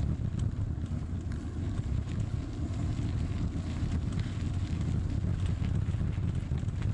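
Wind buffeting the microphone of a camera on a moving bicycle, a steady low rumble, with bicycle tyres rolling over a gravel path and occasional small ticks of grit.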